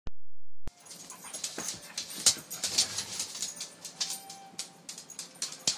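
Two dogs, a pit bull mix and an Irish setter, play-wrestling: irregular scuffling and sharp clicks of paws and jaws, with brief whimpering yips. A steady low hum cuts off abruptly at the very start.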